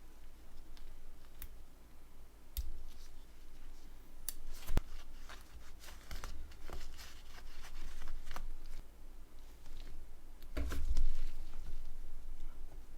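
Scattered small clicks, taps and handling noises of small phone parts and tools being worked by hand on a bench, with a few sharper clicks and one heavier knock near the end.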